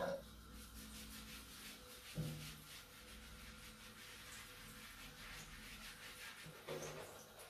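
Faint rubbing of a hand over a wet marmot's fur, with a short low thump about two seconds in.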